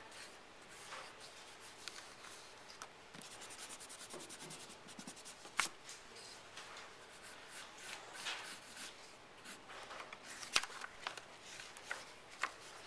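Graphite pencil scratching across drawing paper in short sketching strokes, with a quick run of rapid strokes about four seconds in and a few sharp ticks. Near the end the paper rustles as a sheet is lifted.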